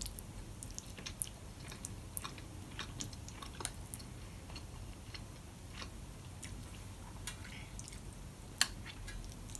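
Quiet chewing of a mouthful of soft beef goulash and rice, with a metal spoon scraping and clicking in a plastic bowl as more is scooped up. One sharper click comes near the end.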